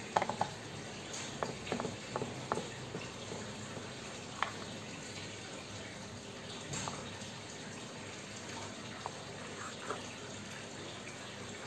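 Knife cutting through cooked beef steak, with scattered light clicks of the blade meeting the cutting surface, over a steady hiss.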